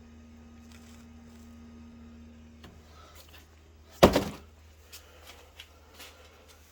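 Gree Amber Prestige 5.3 kW heat pump running with a steady low hum. A steady tone cuts out about two and a half seconds in, then a single loud thunk comes about four seconds in, followed by a few light clicks.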